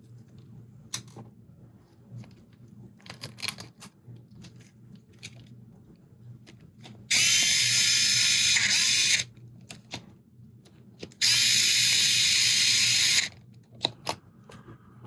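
Low-power electric screwdriver driving small M3 screws into a wheel hub, in two steady runs of about two seconds each. Light clicks of small parts being handled come before them.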